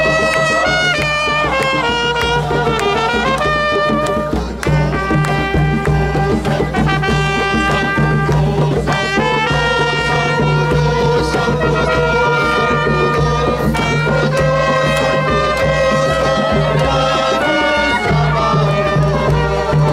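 Trumpets playing a lively hymn tune while a crowd sings along, over a steady beat.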